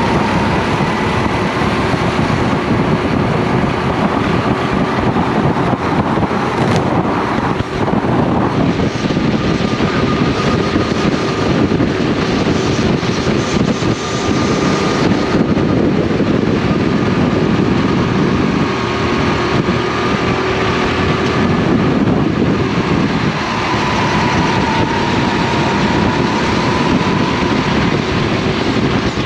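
Racing kart's engine running hard, heard from on board the kart, mixed with wind and tyre noise. The engine note shifts as the kart lifts and accelerates through corners, with brief dips about eight and fourteen seconds in.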